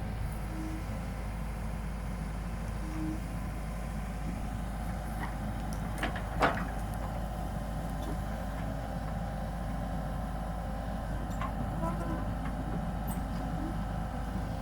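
Komatsu PC78UU excavator's diesel engine running steadily, with a single sharp knock about six seconds in.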